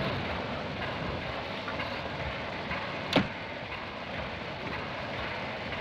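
Railway train pulling out of a station, a steady rumble of rolling carriages with one short sharp sound about three seconds in.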